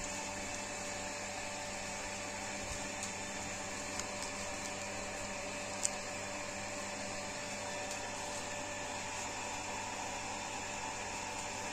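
Steady machine hum and whir, with a few faint clicks, the sharpest about six seconds in.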